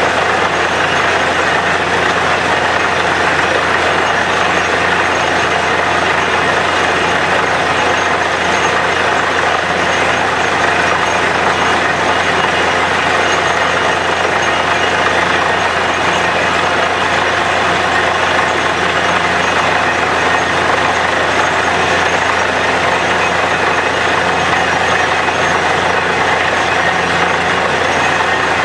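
Borewell drilling rig running steadily, its engine noise mixed with a constant rush of water and mud slurry blowing out of the borehole.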